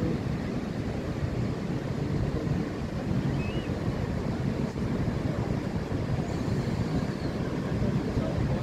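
Wind on the microphone, a steady low gusting noise, over the wash of sea surf.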